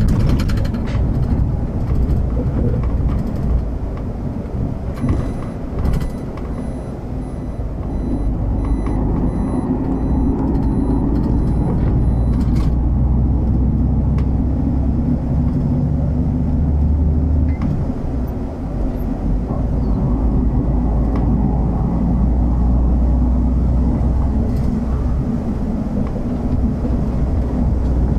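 City bus driving between stops: steady low engine and road rumble. A faint, high, evenly pulsing tone sounds from about five seconds in until about twelve seconds in.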